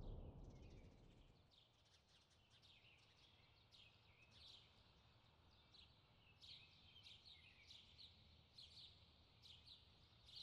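Faint birds chirping: many short, high calls at irregular intervals over a low background hum, which swells briefly at the start.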